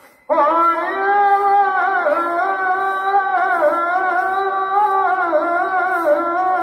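Muezzin chanting the azan, the Islamic call to prayer: one man's voice in long held notes with ornamented turns, starting suddenly just after the start.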